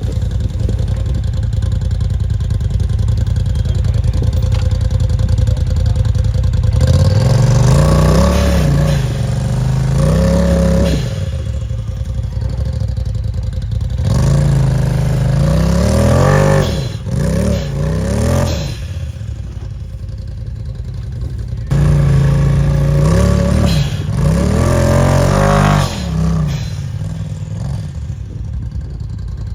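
A side-by-side UTV engine running steadily, then revving up and down repeatedly from about seven seconds in, with clatter from the machine working over rough ground.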